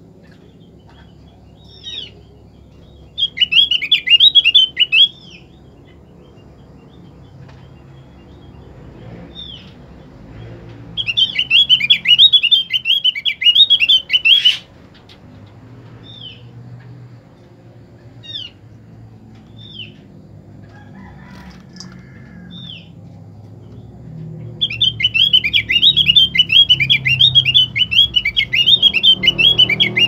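Female opior songbird singing: three bouts of fast, chattering warble, the last starting about 25 seconds in and running on, with short single call notes between the bouts. It is a female's call to male opiors. A sharp click comes once, about halfway through.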